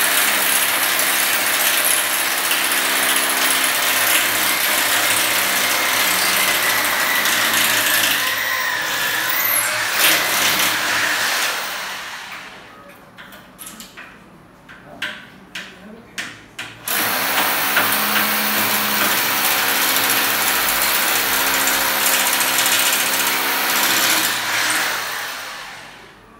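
Electric drill running at steady speed, drilling at an aluminium window frame set in a concrete wall, in two long runs: one of about twelve seconds, then after a few seconds of scattered knocks a second run of about eight seconds.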